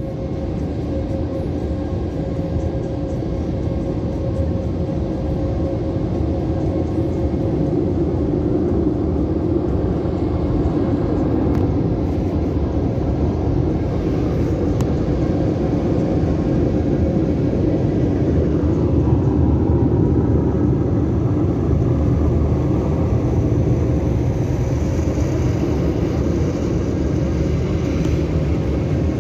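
Automatic car wash machinery running: a loud, steady rumble with a constant hum, growing somewhat louder over the first several seconds.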